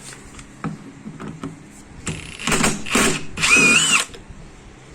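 A few light clicks, then a cordless power tool run in three short bursts, the last about half a second long with a wavering motor whine, as a fastener on a power-steering rack is spun loose.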